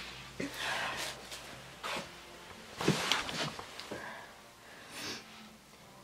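A pig in a stall breathing heavily, with a few irregular breathy snorts; it sounds like a person breathing hard.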